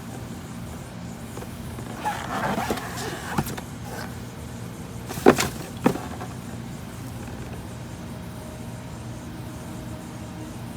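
Handling noises while a plastic alarm clock is unboxed: a rustle with light knocks about two seconds in, then two sharp clicks half a second apart, over a steady low hum.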